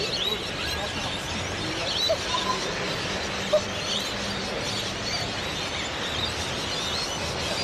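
Many small birds chirping and twittering over a steady hum of street noise.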